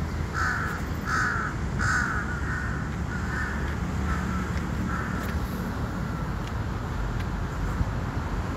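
A crow cawing: a run of about seven harsh caws in quick, even succession, growing fainter, with a steady low rumble underneath.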